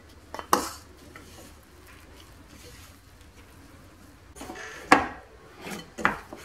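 Knocks and scrapes of a glass mixing bowl and a plastic flour scoop as flour is worked by hand into a stiff dough: a couple of sharp knocks about half a second in, then a cluster of knocks and scrapes between about four and a half and six seconds, the loudest about five seconds in.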